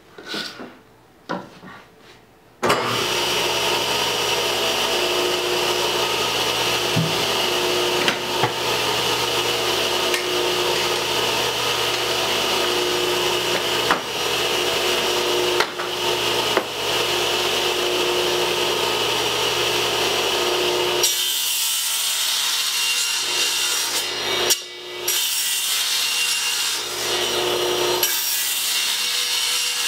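Table saw with a 60-tooth blade starts up about three seconds in and runs steadily while boards are pushed through it, ripping off 3/8-inch-thick slices of wood.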